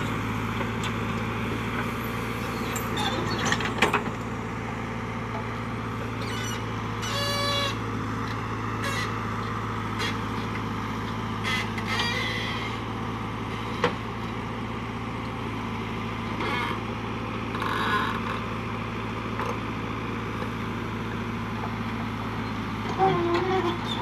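JCB backhoe loader's diesel engine running steadily as the backhoe digs and dumps soil, with occasional sharp clanks and knocks from the bucket and boom.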